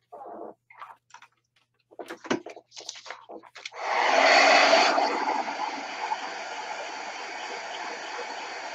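Handheld craft heat tool switched on about four seconds in and blowing steadily over an art journal page, loudest just after it starts. Before it, a few light taps and clicks.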